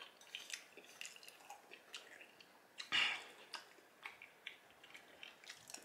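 A man chewing a mouthful of cheesy baked spaghetti: faint mouth sounds and scattered small clicks, with one louder burst about three seconds in.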